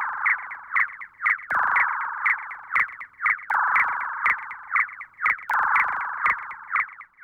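Synthesized sci-fi electronic effect: a buzzing, warbling tone shot through with rapid clicks, starting afresh in four phrases about two seconds apart that each fade a little, and cutting off near the end.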